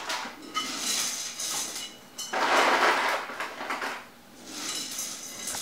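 Metal pots and pans clattering and clanking in a few bursts, with dry macaroni rattling inside them.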